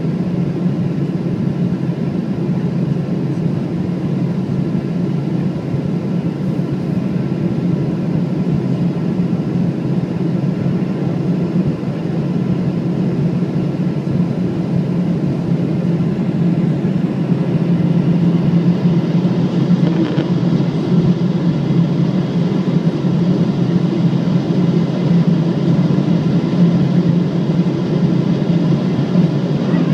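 Steady cabin noise of a Boeing 777-200ER climbing after takeoff: a low rumble of engines and airflow with faint steady whining tones above it, growing slightly louder about two-thirds of the way through.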